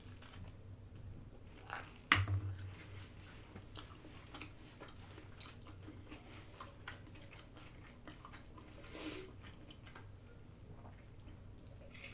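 A person chewing food close to the microphone: soft mouth sounds with many small clicks. About two seconds in there is a sharp click followed by a brief low thump.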